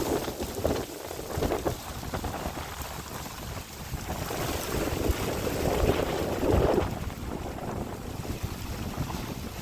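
Stormy wind gusting against the microphone with rain, a rough rushing noise that swells and fades, loudest a little past the middle.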